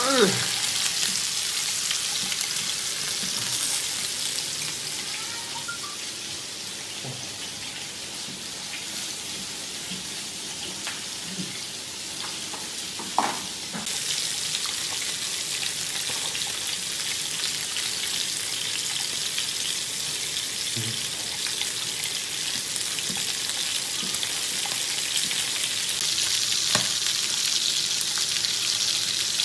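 Pork belly and kidneys sizzling on a grill plate: a steady high hiss, with a sharp click about 13 seconds in and another near the end.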